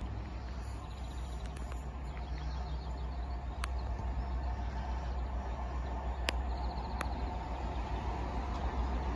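Low rumble of a train still out of sight, slowly growing louder as it approaches, with a few faint clicks and bird chirps.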